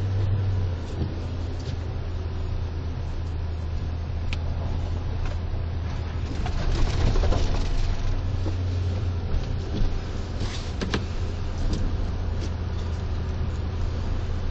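Steady low drone of car cabin noise, the engine and tyres heard from inside a car driving slowly on snowy streets, with a few short crackles about seven and eleven seconds in.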